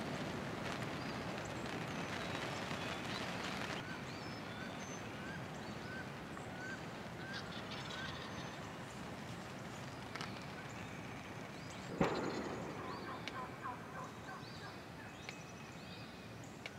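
Wild turkey gobbler gobbling once, loud and sudden, about three-quarters of the way through, its call trailing off in a quick rattle of notes. Earlier there is a run of short, evenly spaced calls over steady outdoor noise.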